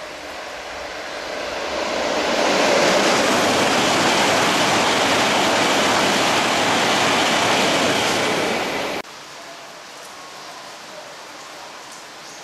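E7 series Shinkansen passing at speed over rain-soaked track: a rushing of wheels, air and thrown-up spray that swells over the first two seconds and holds loud and steady. It cuts off suddenly about nine seconds in, leaving a quieter steady hiss of heavy rain.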